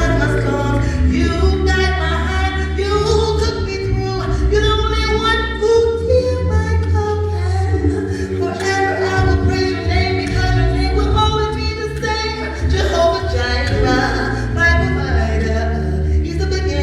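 Live gospel praise music: voices singing over a band, with sustained low bass notes underneath.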